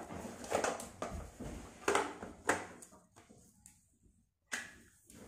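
Paperboard packaging being handled: the inner tray of a smartphone box slid and lifted out, several short scrapes and rustles of board against board, the loudest about two seconds in.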